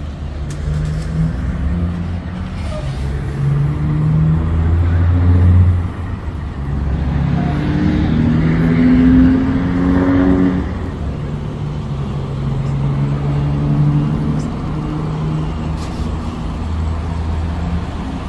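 Semi-truck diesel engine running as the tractor-trailer maneuvers, its revs rising and falling, loudest twice in the middle.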